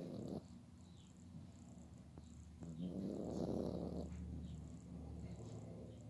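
Chihuahua snoring in deep sleep: a low rattling snore ending about half a second in, then a longer, louder snore breath about three seconds in.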